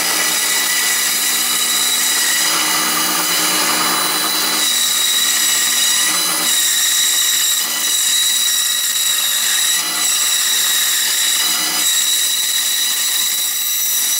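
Benchtop band saw running and cutting through a 2x6 wooden block, which is being turned on a pivot-bolt circle jig to saw out a circle. The motor and blade make a steady tone, with the noise of the cut over it.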